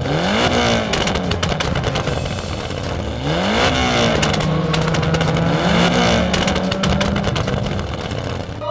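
An engine revving up and down several times, its pitch rising and falling in quick sweeps over a steady low hum.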